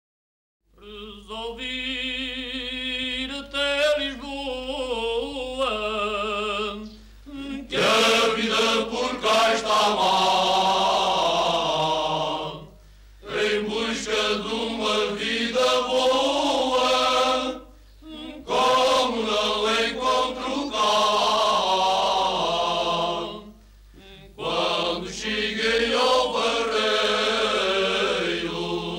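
Unaccompanied Cante Alentejano male choir from the Alentejo, singing slow polyphonic phrases. A single voice opens the song, and the full choir comes in about eight seconds in, with brief breaths between phrases.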